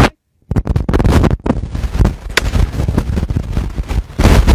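Flintlock Brown Bess musket firing a blank powder charge: a single shot, heard among loud, rough noise on the microphone.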